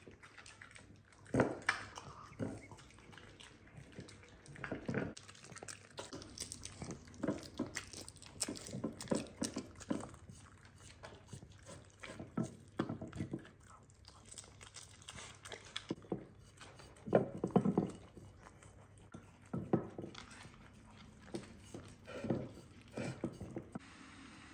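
A dog chewing and biting, with irregular crunches and knocks at uneven intervals, loudest a little past the middle.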